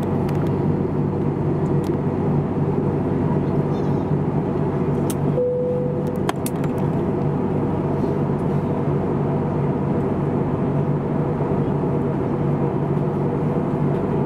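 Steady in-flight cabin noise of an Airbus A321neo: the constant drone of its Pratt & Whitney PW1100G geared turbofans and the airflow, with a few steady hum tones in it. A brief clear tone sounds about five seconds in, and there are a few faint clicks.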